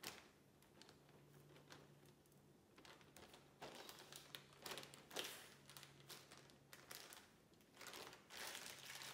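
Faint, irregular crinkling and squishing of a plastic zip-top freezer bag as raw chicken is massaged through it into its marinade, busier after the first few seconds.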